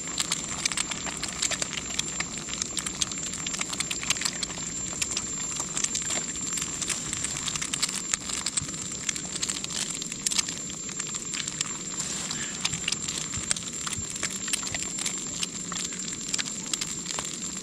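Eggs frying in oil in a wok: a steady sizzle full of constant small spitting crackles.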